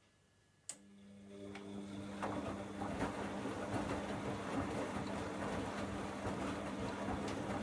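Bosch Logixx 8 (WAS28466) washing machine running its Super Quick 40 programme: a single click under a second in, then a steady hum starts and a rushing, crackly noise builds over about two seconds and holds.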